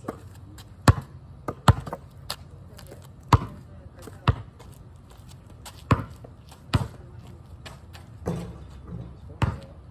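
A basketball bouncing on asphalt, about nine sharp slaps at uneven intervals as it is dribbled and shot.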